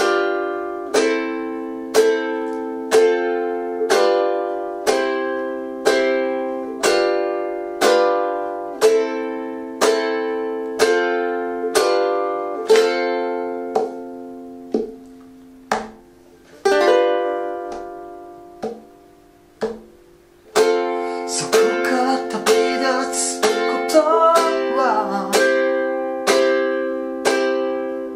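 Ukulele strummed in slow single strokes, about one chord a second, through a C–G7–Am–F intro progression. About two-thirds of the way through, one chord is left to ring out and fade for a few seconds. The strumming then resumes busier, and a singing voice joins in over the last several seconds.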